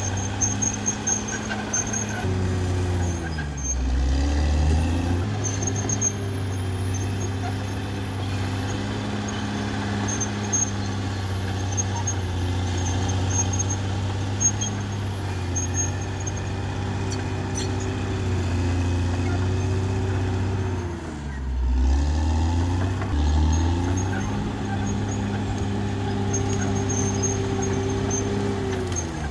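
Caterpillar D6R XL bulldozer's diesel engine running steadily under working load. Its pitch sags and recovers twice, about three seconds in and again about twenty-one seconds in, as the engine is loaded down, and it sags once more at the very end. A thin high squeal runs over it throughout.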